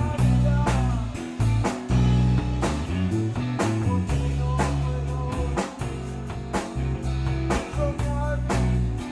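A four-piece rock band playing a blues-rock song: two guitars over sustained bass guitar notes and a steady drum-kit beat.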